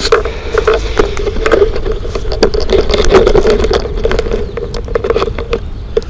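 Handling noise from a handheld camera being carried and set up: rubbing and rumbling against the microphone, with many small clicks and knocks.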